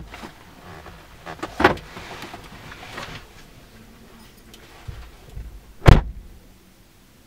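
Dodge car door heard from inside the cabin: a knock and rustling as a passenger climbs out, then the door shut with one loud thud near the end.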